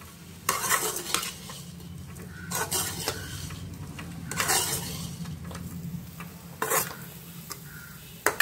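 Metal ladle scraping and stirring fried elephant foot yam cubes in an aluminium kadai, in about five separate strokes over a steady low hum.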